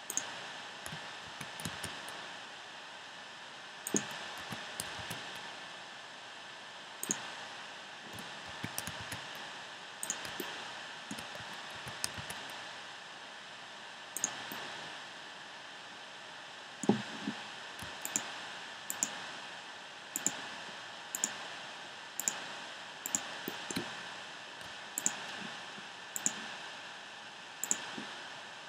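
Scattered sharp clicks of computer keys and mouse buttons, irregular and roughly one every second or two, over a steady hiss of recording noise. One louder knock comes past the middle.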